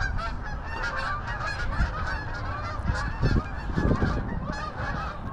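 A flock of Canada geese honking as it flies past, many calls overlapping without a break.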